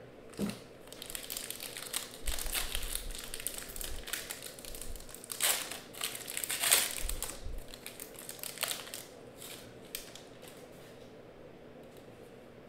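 Foil wrapper of an Upper Deck Stature hockey card pack being torn open and crinkled by hand. The crinkling comes in dense bursts, loudest a little past the middle, and dies down after about nine seconds.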